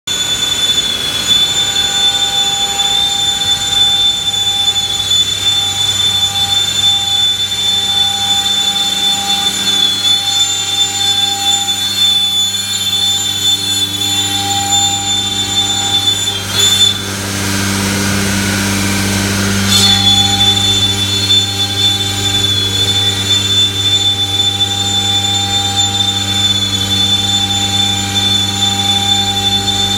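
CNC router cutting sheet stock with its spindle at 24,000 rpm: a steady high whine over a low hum. A little past halfway the whine drops out for about three seconds and a rushing noise takes over, then the whine returns.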